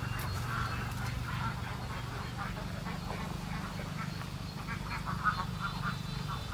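Ducks quacking irregularly in the background over a steady low hum.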